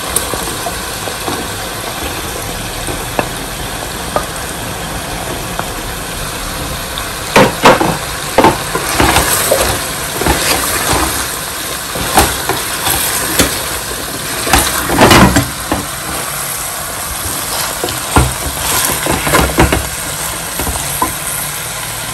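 Chicken curry sizzling in a nonstick pan as cubes of butternut squash are tipped in and stirred with a spatula. The frying hiss is steady, and from about seven seconds in the spatula knocks and scrapes against the pan in quick strokes.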